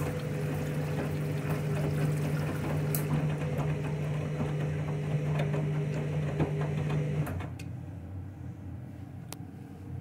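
Candy front-loading washing machine turning its drum during the main wash: a steady motor hum with water sloshing around the bathrobes in the drum. The motor stops about seven seconds in as the drum pauses, leaving a quieter background.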